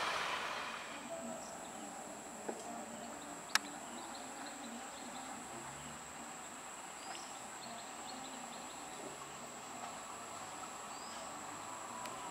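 The rumble of a receding electric suburban (EMU) train fades away within the first second, leaving a quiet background with a steady high insect drone and a few short chirps. A sharp click sounds about three and a half seconds in.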